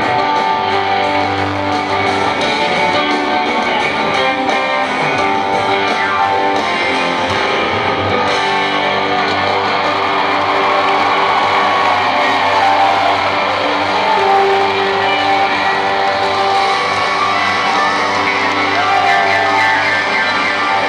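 Live rock band playing, with electric guitar out front over bass and drums. The sound comes loud and steady through a concert hall's PA, recorded from the audience.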